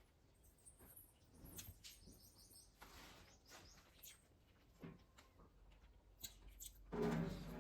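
Soft eating sounds: scattered clicks and rustles of food and cutlery, with short high chirps in the background. A brief low hum about seven seconds in is the loudest sound.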